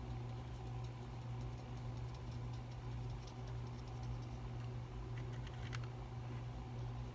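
Faint small taps and ticks of a paintbrush dabbing on thick watercolor paper, a few of them grouped about five to six seconds in, over a steady low hum.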